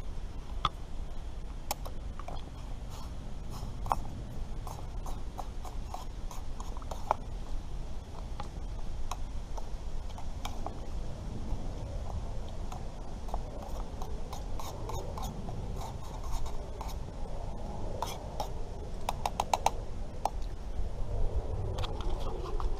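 Spoon stirring noodles in a metal camp pot on a small stove, giving scattered light clicks, taps and scrapes with a cluster near the end, over a steady low rumble.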